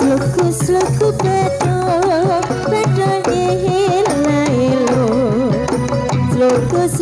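Live Dolalak music: a wavering, vibrato-laden melody sung over drums beating a steady rhythm and a pulsing bass line.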